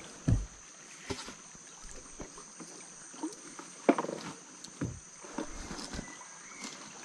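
Scattered knocks, thumps and rustling as a fishing net is handled and fish are worked free of it at the bow of a small boat. The sharpest knock comes about four seconds in, and a steady high insect drone runs underneath.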